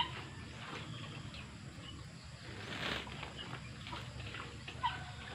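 Farmyard poultry giving short calls, one right at the start and another near the end, with small birds chirping faintly in between.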